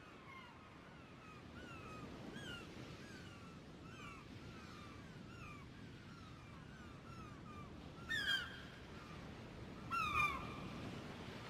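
Birds chirping outdoors with short, quickly repeated notes, broken by two loud, harsh calls, one about eight seconds in and one about ten seconds in, over a low, steady background rush.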